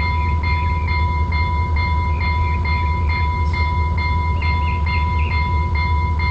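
Transtronic electronic locomotive bell ringing steadily, about two and a half strikes a second over a continuous ringing tone, with a low rumble underneath.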